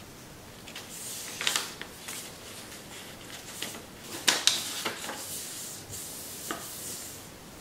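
Sheet of Kami origami paper rustling and crackling as hands fold and crease it. Sharper crinkles come about a second and a half in and again around four and a half seconds in, the loudest there.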